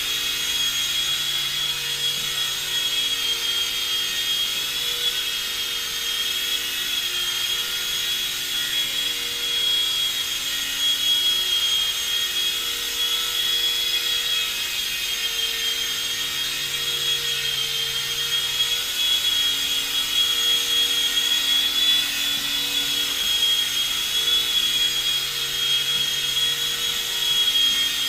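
Blade mCX2 micro coaxial RC electric helicopter in flight. Its motors give a steady high-pitched whine, and lower rotor tones shift every few seconds as the throttle changes during the manoeuvres.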